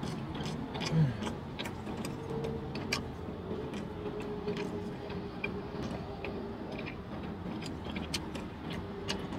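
A person chewing a sauced chicken wing: scattered small wet mouth clicks and smacks throughout, with a brief low 'mm' about a second in.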